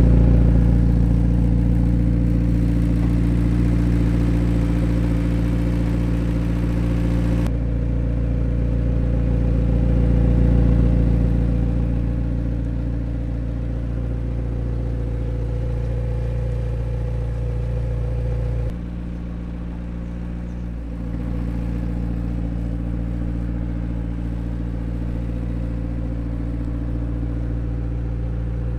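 McLaren 765LT's twin-turbo V8 idling steadily. Its tone shifts abruptly twice, about seven seconds in and again about two-thirds of the way through.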